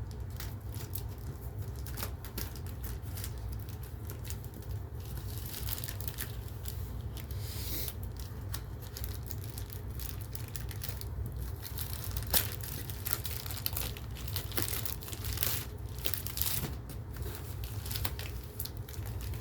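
Packaging being torn open and crinkled by hand: irregular tearing and rustling with scattered clicks, one sharper click about two-thirds of the way through.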